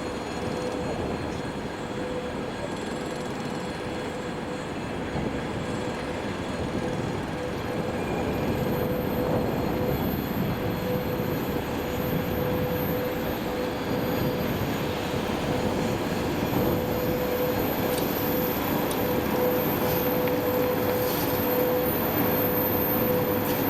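VL80S electric locomotive hauling a freight train: steady rolling rumble of wheels on rail with a single high-pitched tone held throughout, growing gradually louder.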